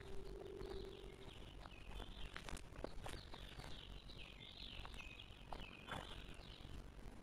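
A songbird twittering: a long run of quick, high chirps and warbles that stops about six and a half seconds in. A low steady hum at the start fades out about a second in, with a few faint clicks.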